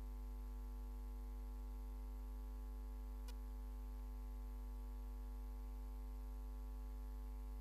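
Steady electrical mains hum through the chamber's microphone and sound system, with a single faint click partway through.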